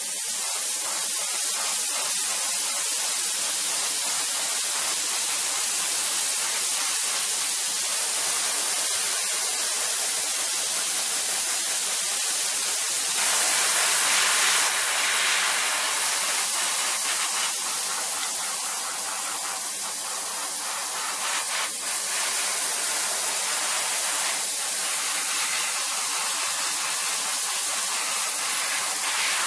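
Airbrush spraying paint: a steady hiss of air and paint, louder for a couple of seconds about halfway through.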